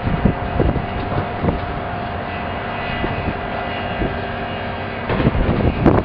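Demolition excavators' diesel engines running steadily, with scattered crunches and thuds of concrete rubble being broken and dropped, and a burst of them near the end.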